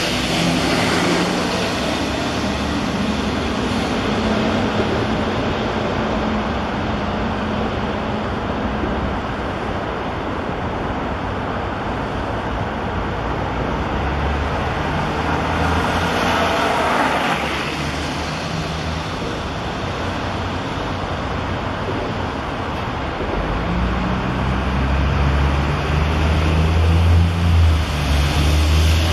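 Steady highway traffic noise, with a vehicle passing by about halfway through and a heavy vehicle's low engine drone building near the end.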